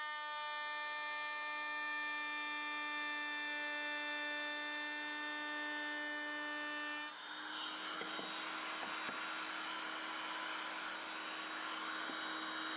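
A high-speed woodworking power tool whines steadily at full speed. About seven seconds in, its pitch drops and a rough cutting sound takes over as the spinning cutter bites into the wood, with the motor still running under load.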